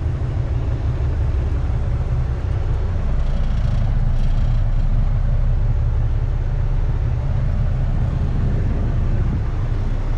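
Volvo VNL semi truck's diesel engine running at a low, steady rumble, heard from inside the cab.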